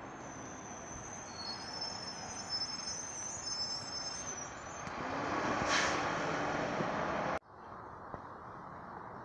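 A jet aircraft flying over: a rushing roar with a thin high whine that builds to its loudest a little past the middle, then cuts off abruptly about seven seconds in, leaving a quieter steady background.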